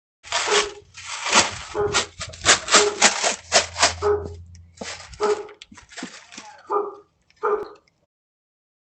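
A dog barking in a rapid series of short, loud barks, about two a second, stopping near the end, heard through a doorbell camera's microphone.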